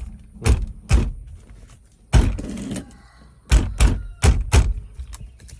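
Dull thuds of the steering wheel being struck by hand to knock it loose from the steering column shaft after its nut is removed. There are two knocks, a longer scraping knock about two seconds in, then four quick knocks.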